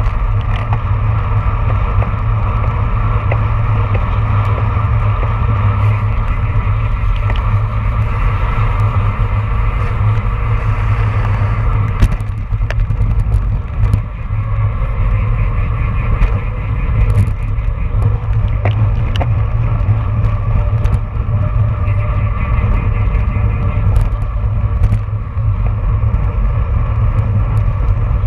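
Wind buffeting and tyre-on-road rumble picked up by a bicycle-mounted camera's microphone while a road bike rides at race speed, around 20 to 29 mph. A few sharp clicks and knocks come through, the sharpest about twelve seconds in.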